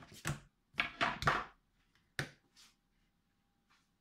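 Kitchen handling sounds: a few knocks and a longer scraping rustle as the mixing bowl's plastic lid and a bowl are moved about on the wooden worktop and the crumbly streusel dough is handled.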